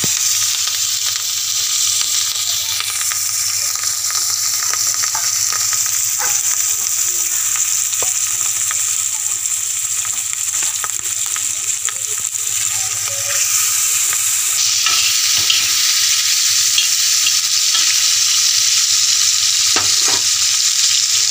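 Pork pieces sizzling in hot oil in a wok, a steady frying hiss that grows louder about two-thirds of the way through, with a few faint clicks.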